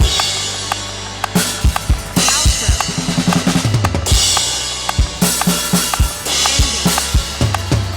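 Live drum kit playing a steady beat with a worship band: kick and snare strikes with cymbal crashes every second or so, over sustained bass notes.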